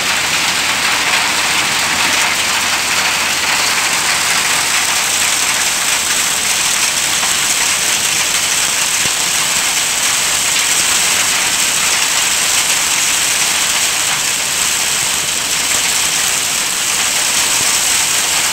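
Hail mixed with heavy rain pelting down on a paved road and grass: a loud, steady hiss of countless small impacts that does not let up.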